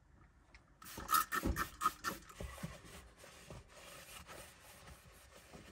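Green plastic mixing bowl handled on a countertop: a quick run of knocks and clatters about a second in, then fainter scraping and rubbing.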